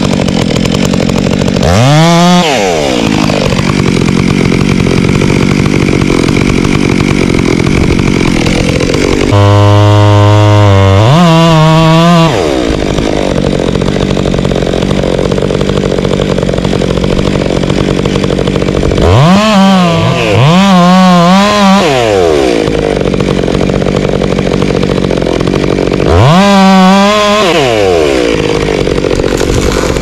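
Stihl chainsaw running continuously while making the felling cuts at the base of a tree trunk. It is revved up and back down several times, with steadier running between the revs.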